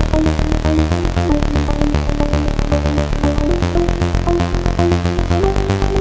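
Clavia Nord Micro Modular synthesizer playing its 'Machiner' patch: a fast, steady sequenced pattern of short pitched notes over a pulsing bass, with reverb and delay on it.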